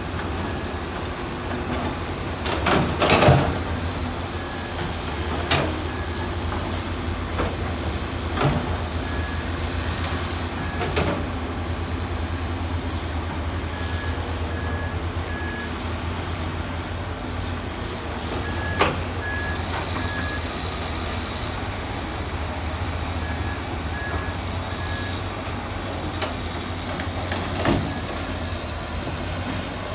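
Heavy diesel construction machine running steadily, its reversing alarm beeping in short groups of about three every four to five seconds. Several sharp clanks sound over it, the loudest about three seconds in.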